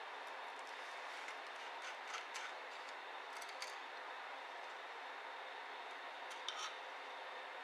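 A few light clicks and taps from small laptop parts being handled, over a steady background hiss.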